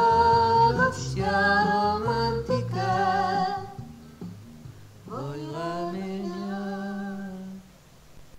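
Karaoke singing in Romanian over a backing track. The accompaniment stops about three and a half seconds in. A last long note with vibrato then rises into place and is held until it fades near the end: the close of the song.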